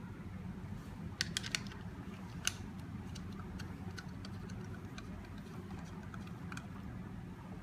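A few sharp clicks about a second in, then a run of lighter, irregular ticks: small screws being handled and driven into a door lock's front panel. A steady low hum runs underneath.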